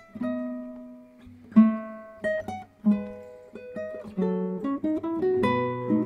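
Acoustic guitar music: plucked single notes and chords, each ringing out and fading, a few a second.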